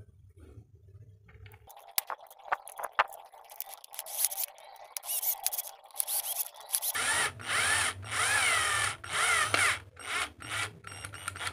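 Cordless drill driver driving screws into the plastic housing of a Black & Decker sander, running in a series of short bursts whose whine rises and falls in pitch with the trigger. A few sharp clicks come before it, about two seconds in.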